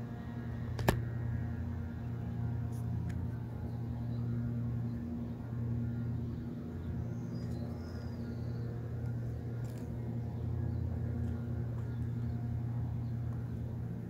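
Outdoor ambience: a steady low rumble and hum, with one sharp click about a second in. No siren tone is sounding.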